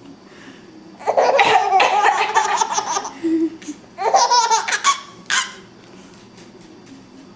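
A baby laughing in bursts of quick repeated laughs: a long run about a second in, another about four seconds in, and a short one just after. The laughter is set off by its mother's coughing.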